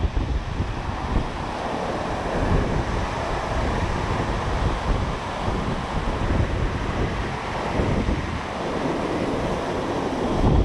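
Ocean swell surging and breaking white against the rock ledge at the cliff base, with wind buffeting the microphone.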